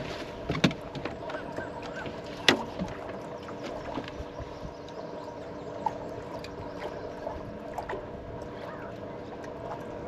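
Bass boat sitting on the water: a steady hum with water lapping at the hull, and a couple of sharp knocks on the deck about half a second and two and a half seconds in.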